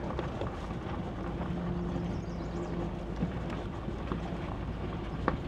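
Off-road vehicle rolling slowly over a gravel clearing: a steady low engine and drivetrain hum with scattered small ticks of tyres on stones, and one sharp click about five seconds in.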